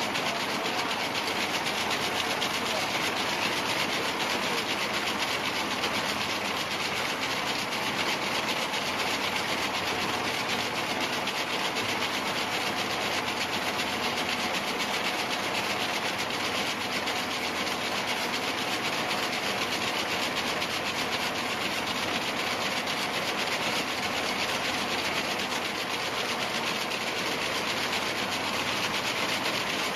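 Large radial braiding machine running, braiding white fibre strands over a mandrel; its ring of rotating bobbin carriers makes a steady, even mechanical noise with no let-up.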